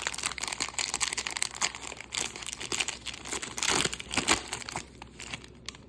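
Wax-paper wrapper of a 1991 Topps jumbo baseball card pack crinkling and tearing as it is torn open by hand, in a steady run of irregular crackles that thin out near the end.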